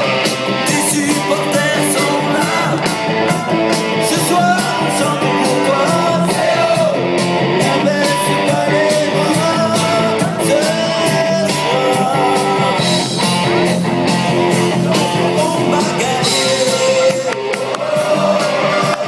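A rock-style supporters' song: a singer over a rock band with a steady drum beat, playing without a break.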